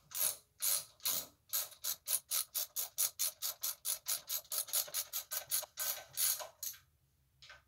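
Socket ratchet wrench worked back and forth on a bolt, a short burst of clicking on each back-stroke, about four or five strokes a second, stopping near the end.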